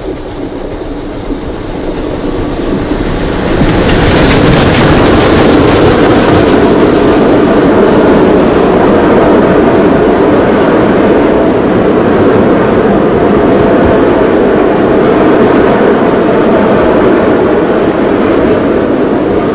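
Steam locomotive 34046 Braunton, a rebuilt Bulleid West Country class pacific, drawing a passenger train past. The sound grows until it turns loud about three and a half seconds in as the engine goes by, then holds steady as the coaches roll past.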